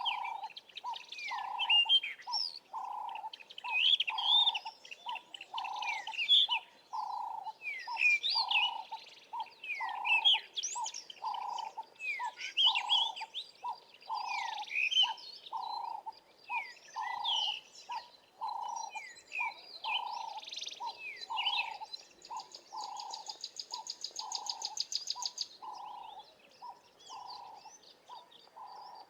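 Several wild birds chirping and whistling over an evenly repeated low note, a little more than one a second. A high, fast pulsing buzz joins for a few seconds about three quarters of the way through.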